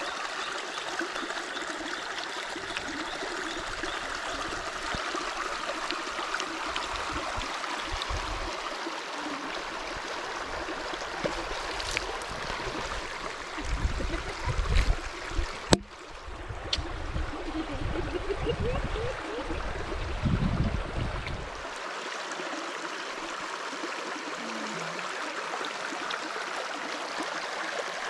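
Shallow river running over rocks: a steady rush of flowing water. Some low rumbling and one sharp click come through about halfway.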